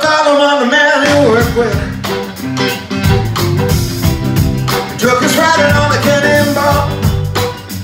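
A live band plays a rock-blues tune on electric guitars, electric bass and drum kit.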